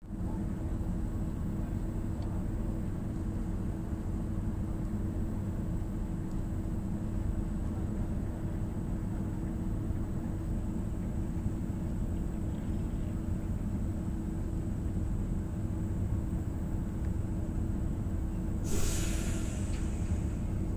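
Passenger train heard from inside while it rolls slowly through a station: a steady low rumble with a constant hum, and a short sharp hiss near the end.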